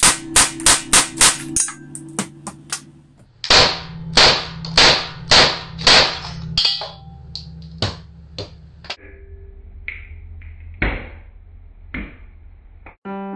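Marushin M9 cap-firing model pistol shooting blank prop cartridges, the slide blowing back on each shot: a quick string of about six sharp reports in under two seconds, then six louder shots about half a second apart. After that come scattered lighter clicks and taps, over background music.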